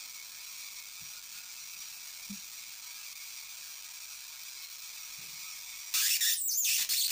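Homemade flyback-transformer high-voltage arc hissing steadily across the gap between its output leads. About six seconds in, a much louder crackling hiss lasts about a second.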